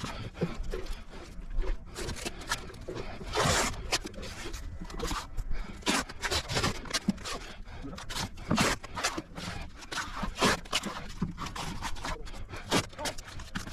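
Irregular scraping and knocking: a quick, uneven series of short sharp scrapes and clicks, as of hand work with tools or materials.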